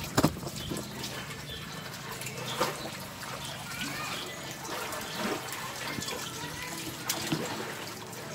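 Tap water running steadily into a tiled sink while dishes are rinsed by hand, with a few sharp knocks from the washing-up, the loudest just after the start.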